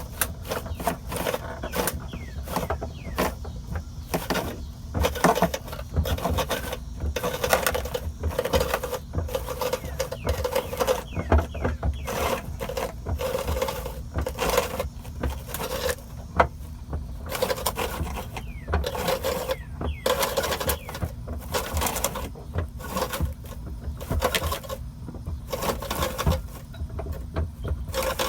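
Spare tire cable winch of a Dodge Grand Caravan being cranked by hand, a continuous run of rapid, irregular mechanical clicking and scraping.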